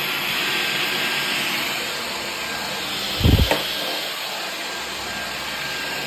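Dyson V15 cordless stick vacuum running, a steady rushing hiss with a thin high motor whine that steps up in pitch right at the start as the power is raised from Eco mode. A single dull thump about three seconds in.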